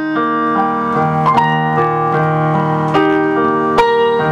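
Electronic keyboard music: slow sustained chords, with new notes struck every second or so.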